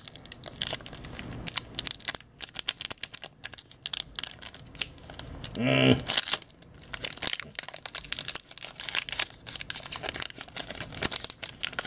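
Foil trading-card pack wrapper being torn open and crinkled by hand, with rapid crackling and rustling of the wrapper and cards. Near the middle comes a brief wordless vocal sound, the loudest moment.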